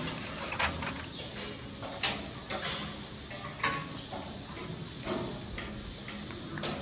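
Scattered sharp metallic clanks and knocks over a steady background noise, with three louder ones well over a second apart.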